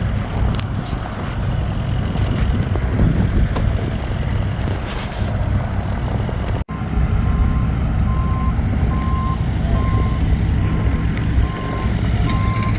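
A heavy vehicle's engine running, joined about halfway through, after an abrupt cut, by its reversing alarm beeping at a steady pace of roughly one beep every half second or so.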